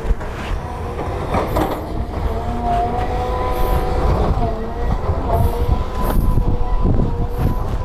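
Hydraulic excavator working: its diesel engine runs with a steady low rumble, a whine rises and falls as the arm swings and lowers, and there are a few sharp clanks.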